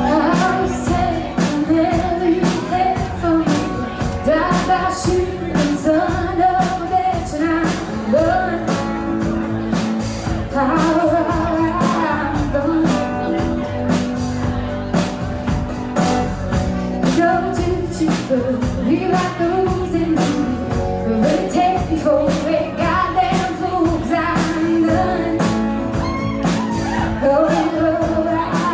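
Live band performance: a woman sings the lead melody over strummed acoustic guitar and bass guitar, with a steady beat.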